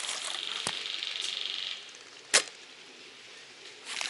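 Airsoft gunfire: a fast high rattle for the first couple of seconds, then one sharp, loud crack of a single airsoft shot a little past the middle.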